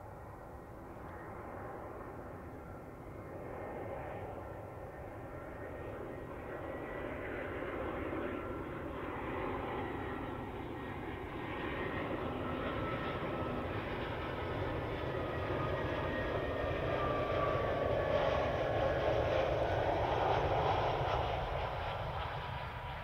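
Airbus A320-214 airliner's CFM56 jet engines on final approach: a steady rumble with a high whine. It grows louder as the plane comes in low, and the whine tones slide down in pitch as it passes, then the sound fades near the end.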